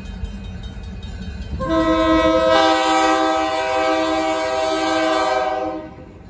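Diesel locomotive's multi-chime air horn sounding one long chord for the grade crossing, starting near two seconds in, with more notes joining about a second later and cutting off shortly before the end. The locomotive's engine rumbles low underneath.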